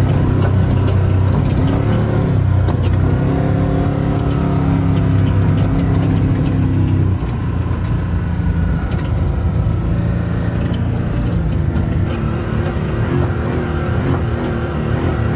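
Off-road race truck's engine running hard, heard from inside the cab, its note rising and falling and easing off about seven seconds in, with the cab and chassis rattling over the rough dirt track.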